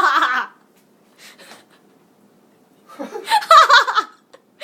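People laughing: the tail of a laugh at the start, then a louder burst of laughter about three seconds in.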